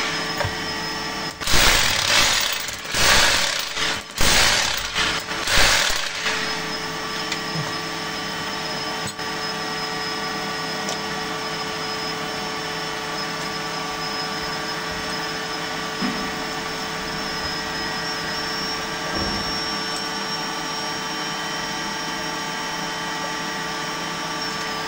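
A steel chisel gouges and scrapes into a broken concrete floor in about five rough strokes during the first six seconds. After that comes a steady motor hum with a high whine.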